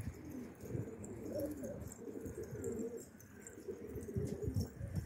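A flock of domestic pigeons cooing, several birds overlapping in low, wavering coos, with a few soft knocks near the end.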